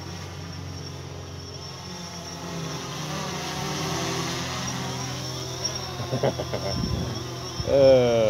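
Quadcopter drone's propellers buzzing in flight: a steady hum of several tones that grows louder from about three seconds in as the drone comes closer. A voice starts right at the end.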